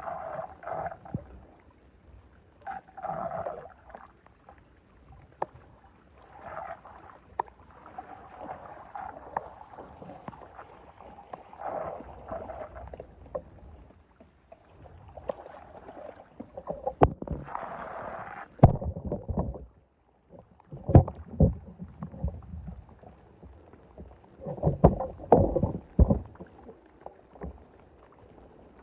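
Water splashing and sloshing in irregular bursts, with several heavier, deeper splashes in the second half.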